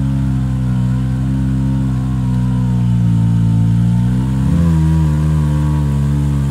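Side-by-side UTV's engine running steadily under load as its front winch drags it out of a mud hole, with a short rise and fall in engine pitch about four and a half seconds in as the wheels spin in the mud.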